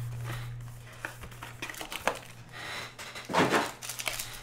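Trading card pack wrappers and cards being handled: crinkling and rustling with scattered light clicks, and a louder crinkle about three and a half seconds in. A low hum at the start fades out within the first half second.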